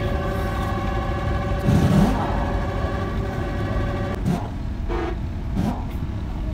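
A motor vehicle engine running steadily in the background, with a steady whine over it for the first four seconds and a brief louder surge about two seconds in. A few short clicks come in the second half.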